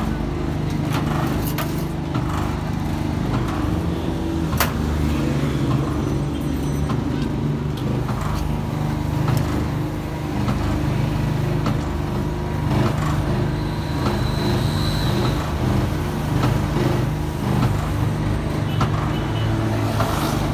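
Steady low hum of a running motor, with street traffic behind it and one sharp click about four and a half seconds in.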